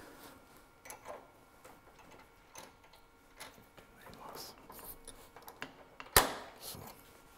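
Scattered light clicks and taps of metal tools being handled at the lathe, with one sharp, louder click about six seconds in.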